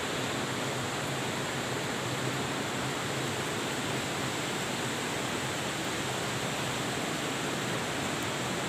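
Steady rushing of a river flowing below the cave, an even noise that holds at one level throughout.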